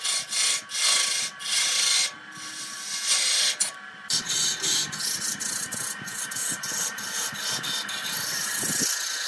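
A turning tool cutting into a spinning areca-wood blank on a lathe, in repeated strokes of a second or less with brief breaks between them. Under the cutting runs the steady whine of the lathe's electric motor.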